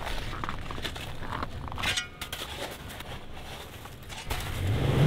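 Faint small clinks and rustles of handling, then from about four seconds in a rising rush of noise with a steady low hum underneath.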